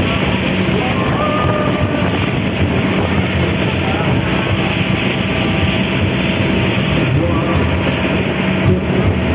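Steady running drone of a motorized outrigger boat's engine, heard from the deck with wind buffeting the microphone.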